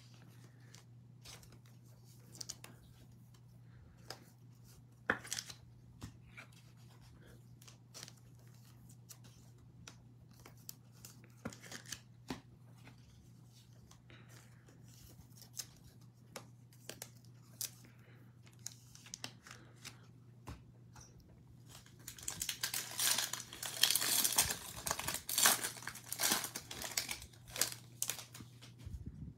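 Faint scattered clicks and taps, then about 22 seconds in the crinkling and tearing of a 2021 Bowman Draft trading card pack's wrapper being ripped open, the loudest sound, lasting about seven seconds. A faint steady low hum runs underneath.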